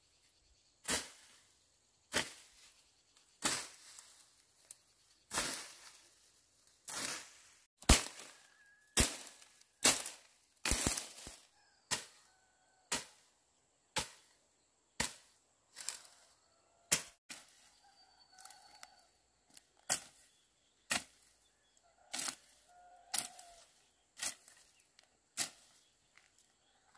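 Long-handled blade slashing through dry weeds and brush, one swishing chop about every second, about two dozen strokes. Faint bird calls join in the second half over a steady high insect drone.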